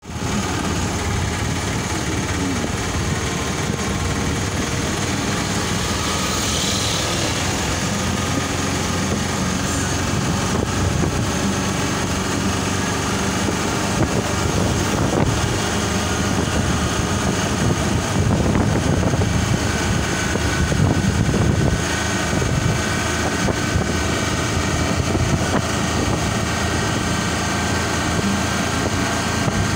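Auto rickshaw (tuk tuk) engine running steadily while under way, heard from inside the open cab, with road noise.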